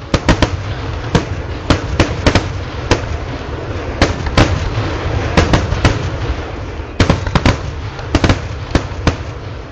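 Kerala temple vedikettu fireworks: a rapid, irregular string of loud firecracker bangs, several a second, over a continuous low rumble. A dense cluster of bangs comes about seven seconds in.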